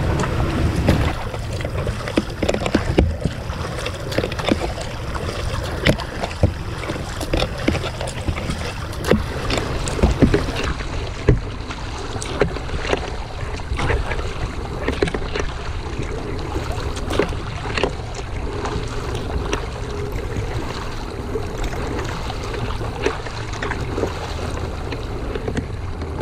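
Water splashing and lapping against the hull of an Oru Bay+ folding kayak as it is paddled, with irregular sharp splashes from the paddle strokes. A steady low wind rumble on the microphone runs underneath.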